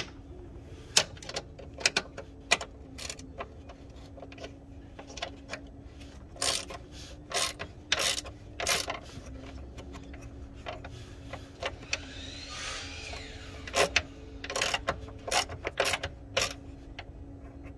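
Irregular clicks, taps and rattles of plastic and metal parts being handled as a replacement hood sensor is fitted at the truck's hood latch, over a steady low hum.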